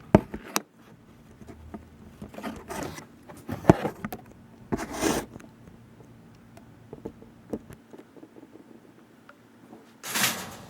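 Handling sounds on a workbench as an oil can is readied to oil a fan: a few sharp clicks and knocks and several short rubbing, scraping rustles, the loudest near the end.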